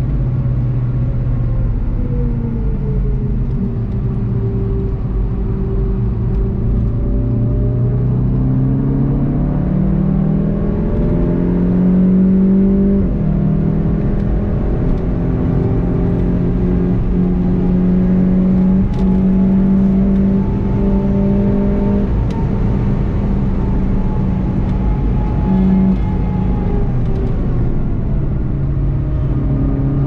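Volkswagen Golf 7 GTI TCR's turbocharged 2.0-litre four-cylinder engine pulling hard at speed, heard from inside the cabin with road and tyre noise. The revs climb for several seconds, dip once as it changes gear a little under halfway in, hold high, then fall as the car brakes near the end.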